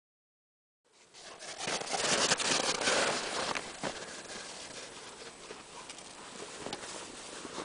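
Footsteps crunching on snow, a dense irregular crackle of short crunches that starts about a second in and is loudest soon after.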